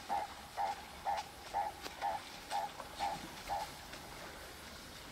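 An animal's call: a short, mid-pitched note repeated evenly about twice a second, stopping a little past halfway.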